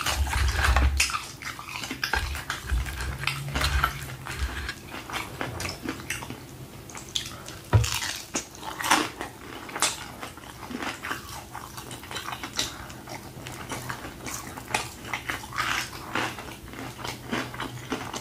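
A person eating fried chicken: chewing and wet lip smacks with many small clicks as the meat is pulled apart by hand, and a few dull low thumps in the first few seconds.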